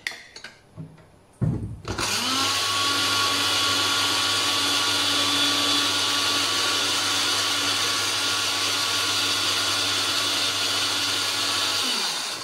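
Countertop blender blending carrots and mango with a little water. It switches on with a click about a second and a half in, speeds up, then runs steadily with a loud whirr, and winds down near the end.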